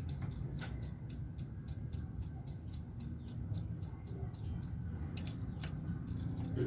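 Engine crankshaft being pried back and forth with two screwdrivers, shifting end to end with a series of light metallic clicks, about two or three a second. The clicks are the sign of the crankshaft's end play: it moves a little, as it should.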